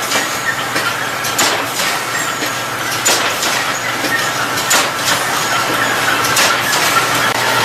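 Machinery running steadily with a low hum, with sharp clacks at irregular intervals.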